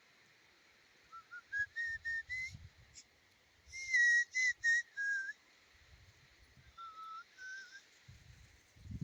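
A person whistling a short tune in three phrases of quick notes, the first phrase stepping upward in pitch and the middle one the loudest, with faint low knocks underneath.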